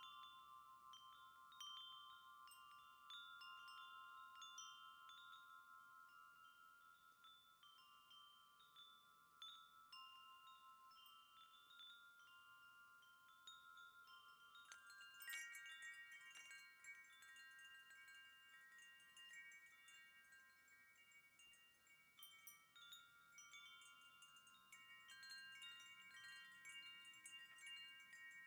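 A wind chime ringing quietly, struck again and again, its overlapping notes hanging on between strikes. About halfway through, a harder strike sets more notes ringing.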